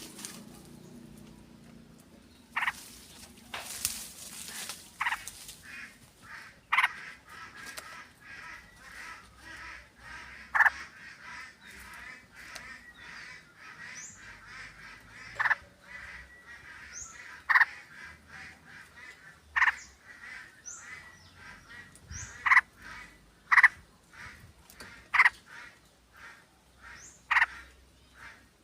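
A group of yellow-vented bulbuls calling, with short loud calls every one to two seconds over a steady background chatter.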